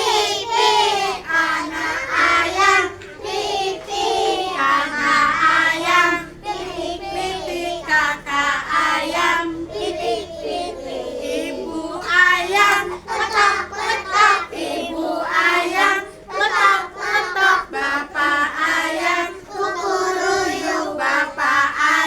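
Young children singing together.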